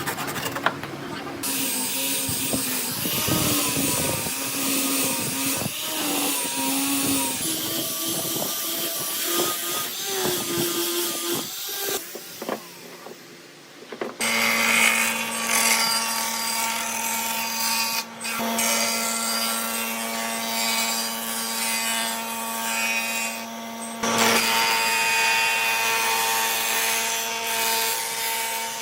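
Electric woodworking power tool working wood: its motor pitch wavers under load for the first dozen seconds, drops away briefly, then runs at a steady pitch for the rest.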